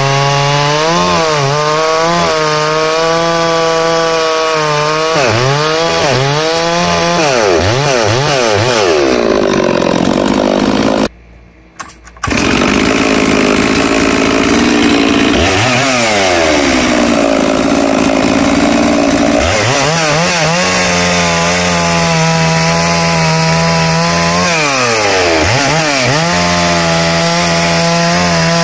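Holzfforma G666 two-stroke chainsaw, a clone of the Stihl 066/MS660, running at high revs while cutting logs on its factory carburettor setting. The engine pitch repeatedly dips and climbs back as the chain loads up in the wood and frees again. The sound breaks off for about a second around eleven seconds in.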